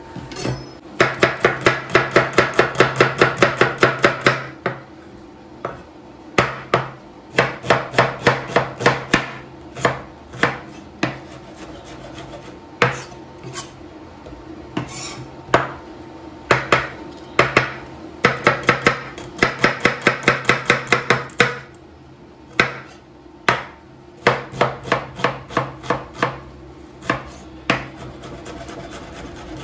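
Chef's knife chopping red onions on a bamboo cutting board: runs of quick knife strikes, several a second, broken by slower single chops. A faint steady hum runs underneath.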